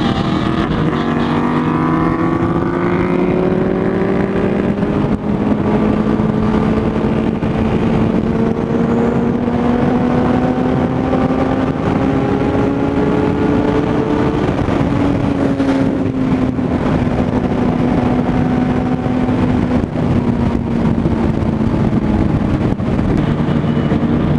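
Sport bike engine heard from on the bike at high revs, its pitch climbing slowly for about the first fourteen seconds as the bike pulls to around 99 on the speedometer, then easing slightly and holding steady at a high-speed cruise.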